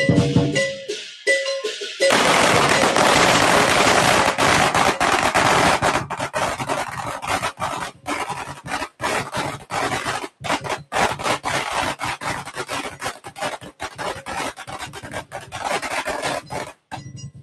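Lion dance drums and cymbals, then about two seconds in a long string of firecrackers starts going off: a dense, rapid crackle of bangs that thins to scattered separate cracks near the end.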